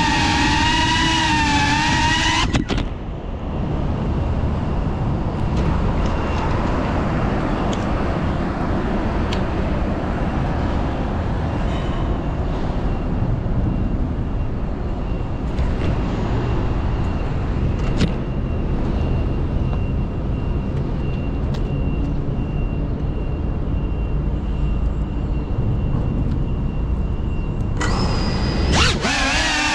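Steady road-traffic noise, picked up by the drone's onboard camera while its motors are idle. The GEPRC Cinelog35 cinewhoop's brushless motors whine at the start, stop about two and a half seconds in, and spin up again near the end with a wavering pitch.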